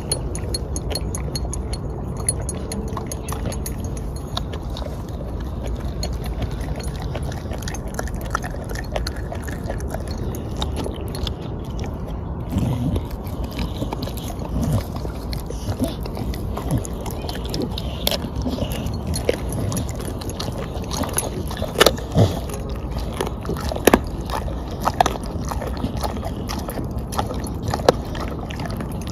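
A dog biting and chewing a whole raw black chicken carcass: scattered wet crunches and bites, sparse in the first half and more frequent in the second, with a few sharp loud crunches. A steady low background noise runs underneath.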